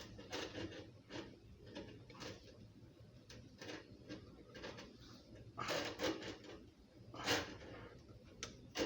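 Irregular clicks, knocks and scraping as faucet parts and fittings are handled and fitted by hand, with a few louder clunks about six and seven seconds in and near the end.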